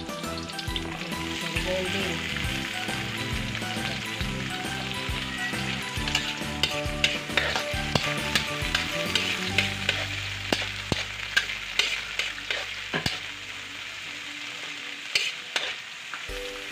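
Chopped vegetables sizzling in hot oil in a metal wok as they are stir-fried. A spatula scrapes and clicks against the wok over and over, most busily in the middle.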